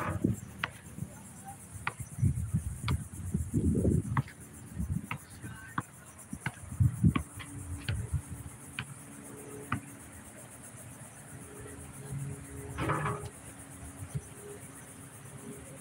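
Insects buzzing steadily at a high pitch, with irregular low rumbling in the first few seconds and scattered faint ticks.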